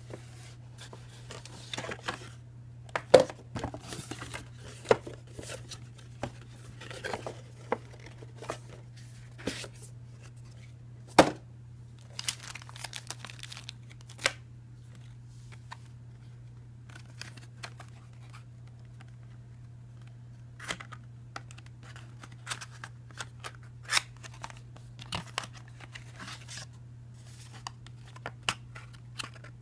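Hands handling packaging: cardboard, paper and a plastic bag rustling, crinkling and tearing, with sharp knocks and taps now and then, loudest about three and eleven seconds in. A steady low hum runs underneath.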